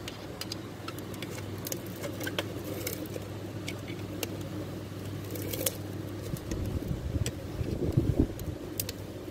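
Scattered light metallic clicks and taps from an Allen key tightening a piston ring compressor around a piston to close up its rings, over a steady low hum.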